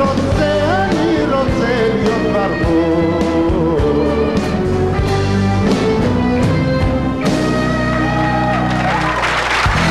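Live band with acoustic guitar, keyboards and drums playing the closing bars of a pop song, a male voice singing over the first couple of seconds. The band settles onto a held chord about seven seconds in, and audience applause breaks out near the end.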